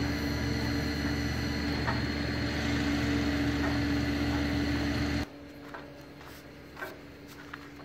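Truck-mounted Fassi F65 knuckle-boom crane's hydraulics running as the boom moves, a steady hum with a held whine over a low rumble. It cuts off suddenly about five seconds in, leaving a few light knocks.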